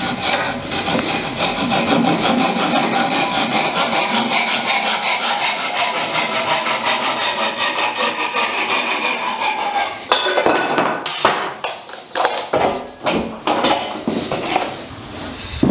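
Handsaw cutting through a wooden batten with quick, even strokes for about ten seconds. The sawing then stops, and a string of separate knocks and clicks follows as the piece is handled and the clamp jaws are worked.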